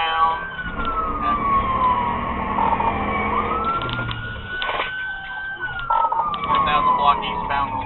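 Police car siren on the wail setting: a slow rise in pitch, a brief hold, then a long fall, with the cycle starting over about three seconds in.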